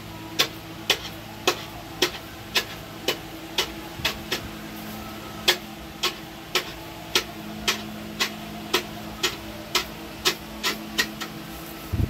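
Fully automatic agarbatti (incense stick) making machine running on a trial run: a sharp mechanical clack about twice a second, over a steady hum.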